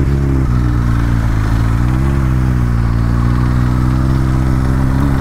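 Kawasaki Ninja 1000SX's inline-four engine and exhaust pulling under way. The revs dip briefly about half a second in, climb again around two seconds in, then hold steady.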